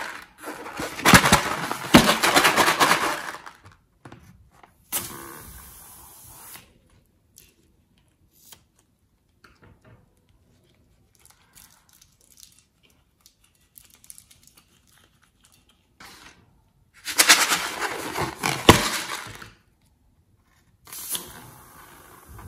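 Slime-filled rubber balloons handled and squeezed over a bowl of slime, giving four bursts of crackling, squishing noise with quiet stretches between.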